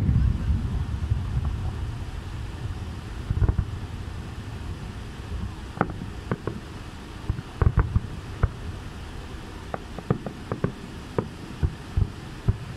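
Aerial fireworks bursting: a loud boom at the start that rumbles away, then scattered sharp cracks and pops from about six seconds in, coming more often near the end, over a steady low rumble of wind on the microphone.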